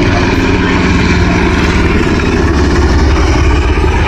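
Loud, steady chop of a Sikorsky MH-60R Seahawk's four-bladed main rotor and engines as the helicopter flies close overhead.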